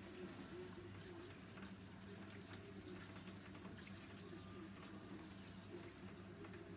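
Water running quietly from a salon backwash basin's handheld shower spray, rinsing over hair and splashing into the basin. A faint steady low hum lies underneath.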